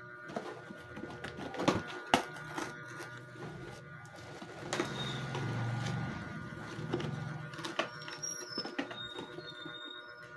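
Cardboard packaging of an electric grill being handled and opened: the rustling and scraping of cardboard, with several sharp knocks and taps as the box is pulled and lifted.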